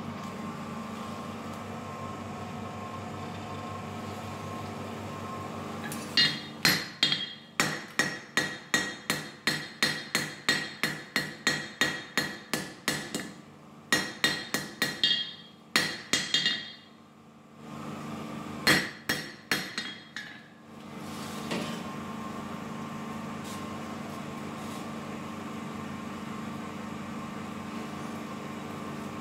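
Hand hammer striking a hot steel knife blank on an anvil, a fast run of ringing blows at about three a second with two short pauses, forging the blade. Before and after the hammering, a steady hum fills the gaps while the bar heats in the coal forge.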